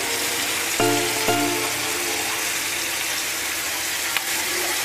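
Chicken pieces frying in ghee in a non-stick pan, a steady sizzle, with a few notes of background music about a second in and a single click near the end.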